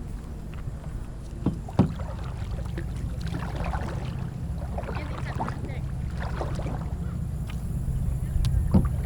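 Kayak on a river: a steady low rumble of wind and water, with a few sharp knocks, twice about a second and a half to two seconds in and once near the end.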